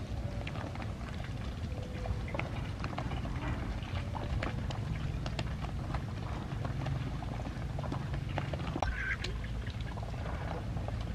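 Domestic ducks feeding from a basket of chopped water morning glory porridge: many quick clicks of bills dabbling in the wet mash, with a few short quacks.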